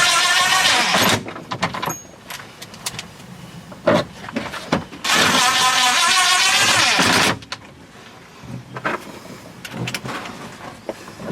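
A power tool's motor running in two bursts of about two seconds each, its pitch wavering, with scattered clicks and knocks from parts being handled between the bursts.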